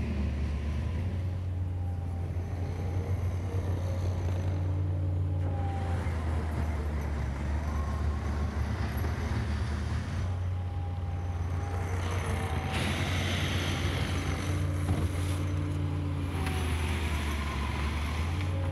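Heavy diesel engine idling steadily, an even low drone with no change in speed.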